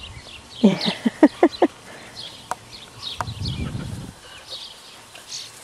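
Birds chirping in the background, with a quick run of about five short pitched calls about a second in and a low rustle near the middle.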